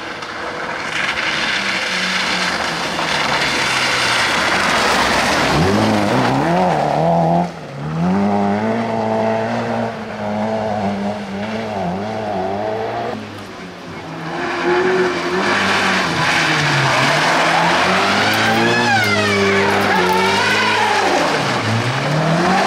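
Rally car engine revving hard as the car is driven flat out, its pitch climbing sharply with brief drops at gear changes and lifts. There is a short lull past the middle, then hard revving again near the end, with tyres squealing and skidding as the car drifts.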